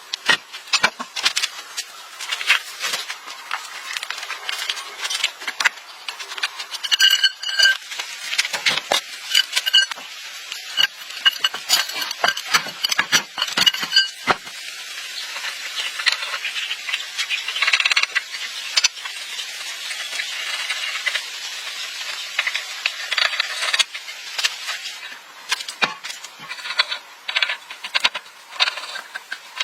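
Repeated metallic clinks, knocks and rattles of hand tools and metal parts being handled, some strikes ringing briefly.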